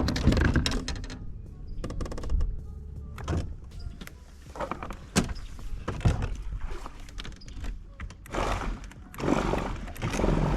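Scattered knocks and clunks, a handful of separate sharp hits, over a low steady rumble, with a longer rush of noise near the end.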